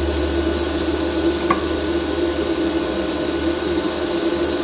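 TIG welding arc burning steadily, a constant hiss over a low hum, with the welding current turned down to about 65 amps, where it is running right.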